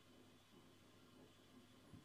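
Near silence: room tone with a faint steady low hum and one slight tap just before the end.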